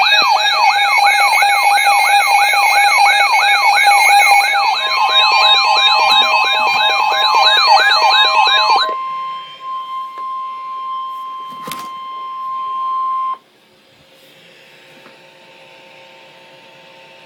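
Emergency alert broadcast's attention signal: a loud electronic siren tone sweeping up and down about three times a second, with a steady tone joining about five seconds in. The siren stops about nine seconds in, the steady tone holds alone until about thirteen seconds and cuts off, and only a low hiss remains.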